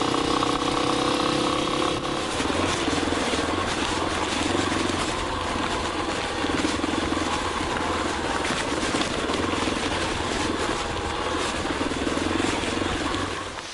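Yamaha Tricker XG250's single-cylinder four-stroke engine running steadily, its note changing about two seconds in, then shutting off just before the end.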